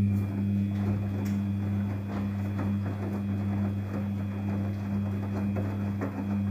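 Daewoo DWD-FT1013 washing machine running with a steady electric pump hum, over water churning and bubbling in the tub.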